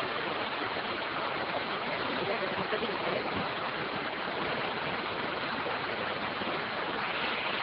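Fast, muddy floodwater rushing and churning in a swollen river, a steady even rush of water.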